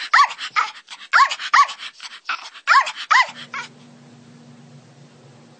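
A small dog barking: quick high-pitched barks, mostly in pairs, about eight in all, stopping about three and a half seconds in, after which only a faint steady hum remains.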